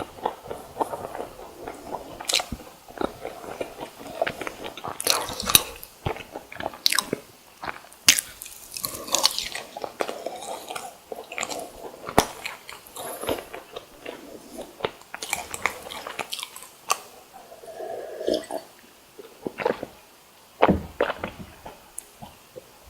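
Close-miked biting and chewing of fried sweet rice doughnuts and croquettes: crisp crunches as the fried crust breaks, then soft, squishy chewing at an uneven pace.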